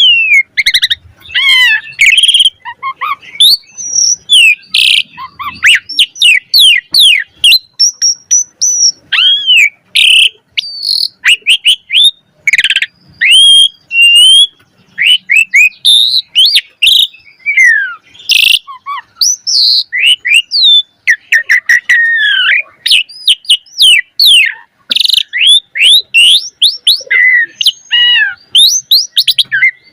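Pied starling (jalak suren) singing hard and without pause: a fast, varied stream of short whistles, swooping notes, chirps and sharp clicks.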